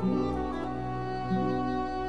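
Instrumental background music: long held, sustained notes that change about every second and a half.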